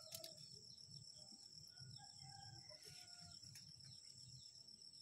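Quiet garden ambience: a steady high-pitched insect drone with faint repeated chirps, and a rooster crowing faintly about two seconds in.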